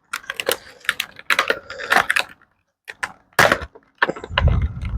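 Toy packaging being handled and opened: an irregular run of clicks and rustles, with a dull low thump a little past four seconds in.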